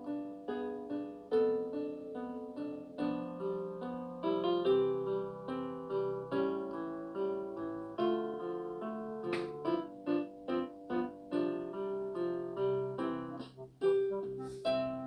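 Background music with plucked-string and keyboard notes in a quick, steady run.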